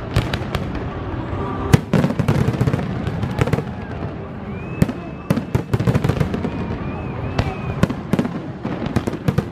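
Fireworks display: a rapid, irregular string of sharp bangs and crackles over a continuous low rumble, with the loudest bang about two seconds in. Faint whistling tones come through near the middle.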